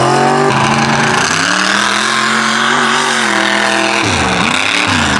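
Mega mud truck's engine revving hard, held high for a couple of seconds, then dropping and being blipped up and down quickly near the end.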